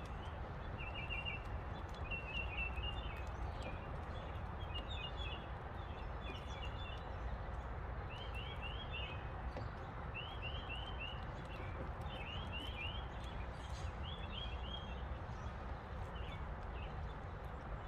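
A songbird singing short, rapid chirping trills, repeated every second or two, over a steady low outdoor background noise, with a few faint clicks.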